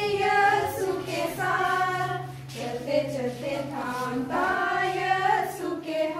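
A group of women and girls singing a hymn together, a slow melody with long held notes.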